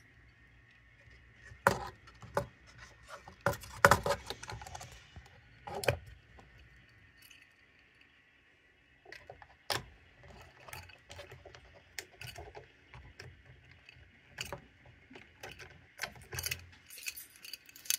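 Sharp clicks and clacks as the lid of a small black turnout-control enclosure is handled and shut, loudest in the first few seconds. This is followed by lighter rattling and clicking of a small lock and key ring being worked at the box's hasp to lock it.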